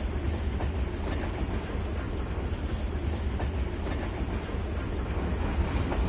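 Steam train with passenger cars rolling along the track: a steady low rumble with the clickety-clack of wheels over the rail joints.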